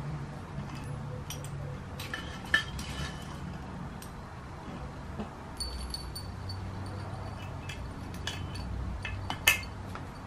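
Small dishes clinking and clicking lightly as cats eat from them and a hand sets one down, with two sharper clinks, about two and a half seconds in and near the end, over a low steady hum.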